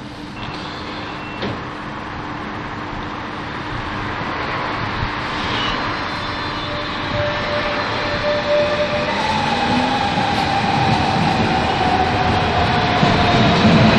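Hamburg S-Bahn BR 474 electric multiple unit running into a station and passing below, its rumble growing steadily louder. About two-thirds of the way through, an electric whine comes in and slowly falls in pitch as the train slows.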